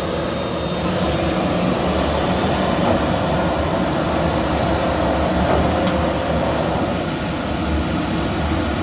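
Thermwood CNC router running, with its head travelling along the gantry: a steady mechanical rumble with a hiss over it.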